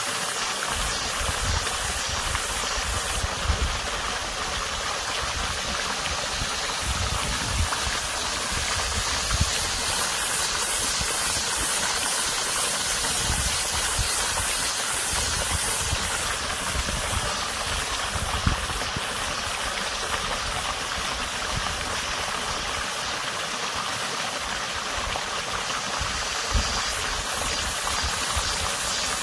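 Water running steadily over a small creek bed, an even rushing hiss with occasional low rumbles. Cicadas give a high, pulsing buzz above it that swells and fades a few times.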